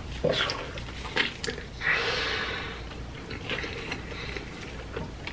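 Close-miked eating sounds of cheesy deep-dish pizza: wet chewing, squishing and mouth clicks, with a loud breath about two seconds in.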